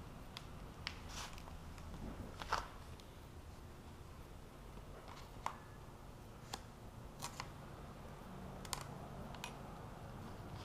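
Hands folding and pressing micro suede fabric around the edges of a plastic interior trim pillar: scattered light clicks and taps at irregular intervals, about nine in all, over a low steady hum.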